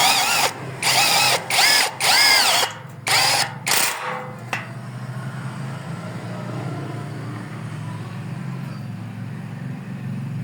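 A small electric power tool motor run in short trigger bursts, its pitch rising and falling back each time, about six times over the first four seconds. Then only a steady low hum.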